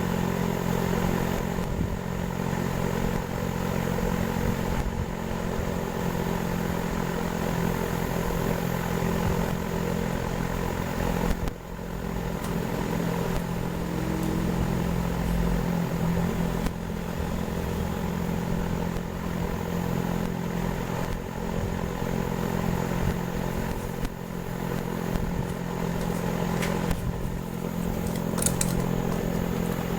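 A motor running steadily, a constant hum with several steady tones, dipping briefly about eleven seconds in.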